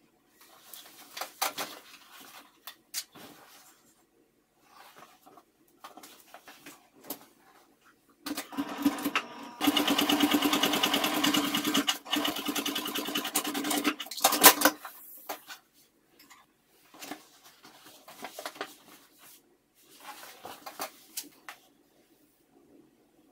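Electric sewing machine stitching a straight seam, running steadily for about six seconds in the middle. Before and after it come light clicks and rustling from fabric and clips being handled.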